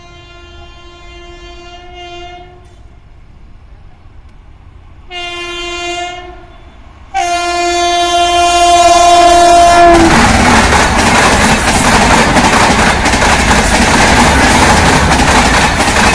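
WAP-7 electric locomotive horn sounding three times as the Rajdhani Express approaches: a blast fading out in the first few seconds, a short blast about five seconds in, and a louder long blast from about seven seconds. About ten seconds in the locomotive reaches the microphone and the LHB coaches rush past at high speed, a loud continuous roar with rapid wheel clatter.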